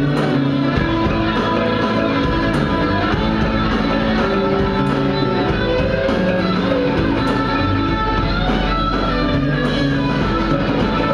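Live band music led by guitars, with an electric guitar played over the band. Loud and steady, with a strong accent about every two and a half seconds.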